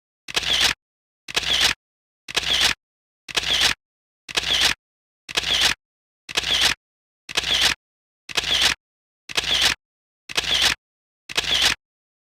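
Camera shutter sound effect repeating about once a second, a dozen identical clicks with dead silence between them.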